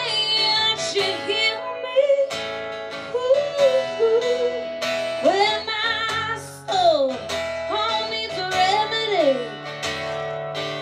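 Live country band playing between sung lines: acoustic guitar with band backing, and a lead melody that slides and swoops in pitch.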